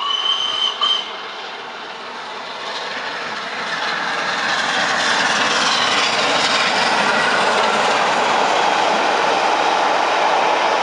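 LNER Class A3 steam locomotive Flying Scotsman passing at speed with its train of coaches. A short steady whistle lasting about a second opens, then the rush of the engine and the wheels on the rails builds over a few seconds to a steady loud noise as the coaches run past.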